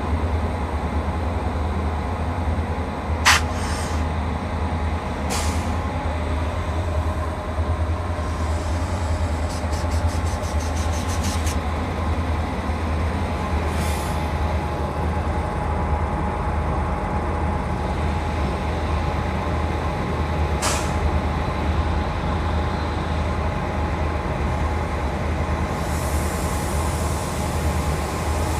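WAG9HC three-phase electric freight locomotive running with a steady whir and hum, thin steady whining tones over it. A few sharp clicks break through, the loudest about three seconds in, and a quick run of ticking comes about a third of the way through.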